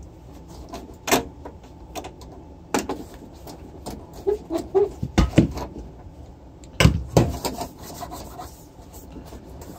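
A cloth rubbing and wiping over a turntable's plinth and around the tonearm, with scattered knocks and clicks from handling it. The loudest knocks come about five and seven seconds in.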